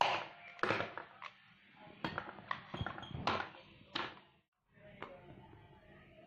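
A metal spoon knocking and scraping in a plastic tub of batter as it is stirred, several short clinks in the first four seconds. After a brief cut-out the clinks give way to faint handling sounds.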